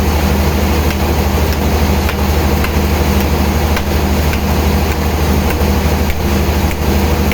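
Heavy sawmill machinery running with a steady low hum and a few faint clicks.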